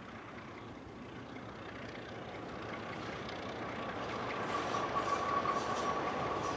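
Diesel locomotives hauling a grain train approach, their engines growing steadily louder, with a steady high whine coming in about halfway through.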